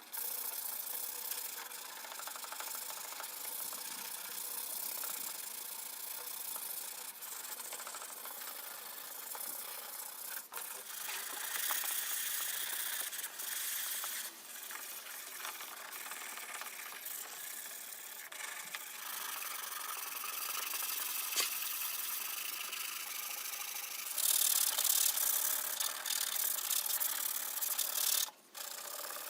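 Hand sanding: a steady scratchy rasp of abrasive rubbing over a surface, louder for a few seconds near the end, then briefly stopping.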